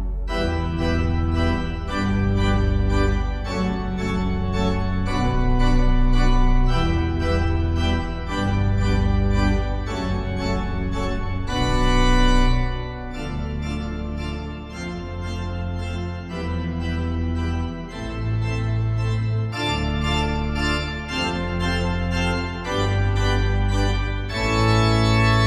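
Hauptwerk virtual pipe organ sounding samples of the Eisenbarth organ of Friesach, playing a romantic piece in sustained chords over a deep pedal bass. The music softens for a few seconds in the middle and builds to a loud held chord near the end.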